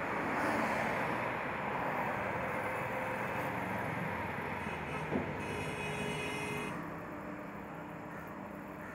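Steady hum of distant road traffic, with one short sharp click about five seconds in.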